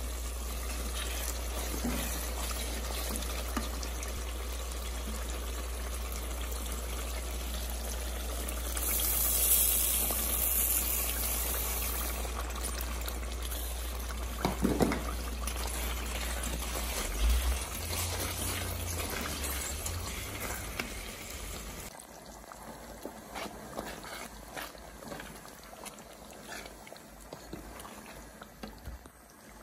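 Tomato stew simmering and bubbling in a cooking pot while a wooden spoon stirs it, with scattered knocks of the spoon on the pot. A low steady hum runs under it and stops about two-thirds of the way through, after which it is quieter.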